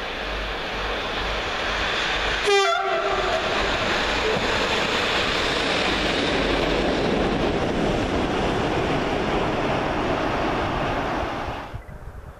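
SNCF BB 75000-class diesel-electric freight locomotive BB 75011 passing close with a train of VTG freight wagons. It gives a short horn blast about two and a half seconds in. The engine and the wagons' wheel noise then run loud and steady and cut off sharply near the end.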